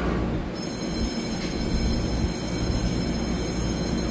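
Taiwan Railway EMU3000 electric train standing at the platform, its on-board equipment humming steadily. A high, steady whine joins about half a second in.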